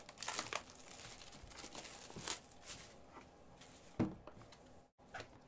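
Hands handling a sealed cardboard hockey card box: light rustling, scraping and small clicks, with a sharper knock about four seconds in.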